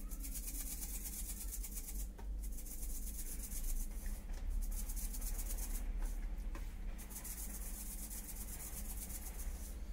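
Salt being shaken from a small plastic shaker bottle, the grains rattling inside in quick repeated shakes, with a short break about two seconds in; the shaking stops about seven seconds in.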